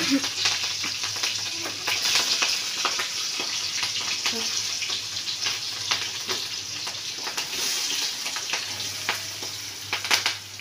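Green chillies frying in hot oil in a steel kadai: a steady sizzling hiss, broken by a few short sharp clicks. The sizzle drops away somewhat near the end.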